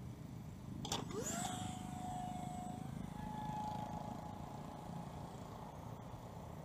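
A sharp snap as the catapult launcher releases, then the whine of the model jet's 50 mm electric ducted fan, rising quickly in pitch and holding steady, stepping up once, then fading as the plane climbs away.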